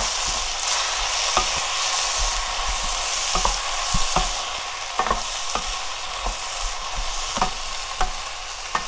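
Fish cakes, shishito peppers, onion and carrot sizzling in a hot frying pan while being stir-fried with a spatula: a steady hiss of frying, broken by about a dozen irregular light knocks and scrapes of the spatula against the pan.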